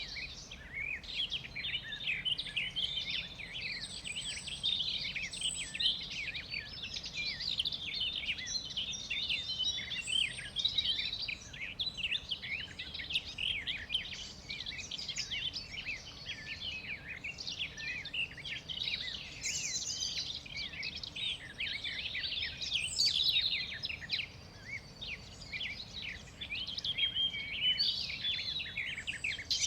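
A dense chorus of many birds chirping, their short, high chirps overlapping without a break.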